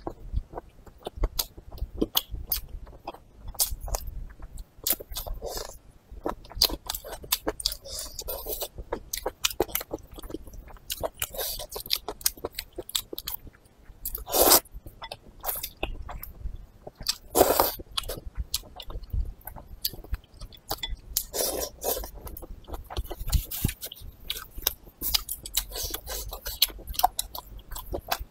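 Close-miked eating of noodles: steady chewing with many small wet clicks and smacks, broken by a few louder slurps, the strongest about halfway through.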